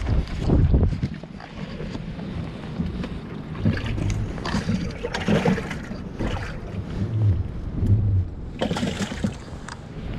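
Close handling noise of a zippered mesh fish weigh bag rustling and rubbing against the microphone, with irregular knocks, while a bass is lifted out of a boat's livewell.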